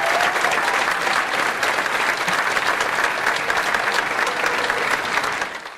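Live audience applauding, a dense patter of handclaps with a few faint voices in it, fading out near the end.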